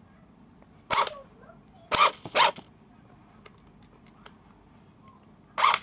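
Cordless impact wrench run in short pulls of the trigger: four brief blasts, one about a second in, two close together near two seconds, and one more near the end, with faint clicks in between.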